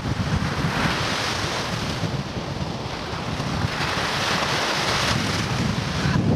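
Wind-driven lake waves breaking and crashing on the beach, the surf swelling up about a second in and again around four seconds in. Steady wind buffets the microphone underneath.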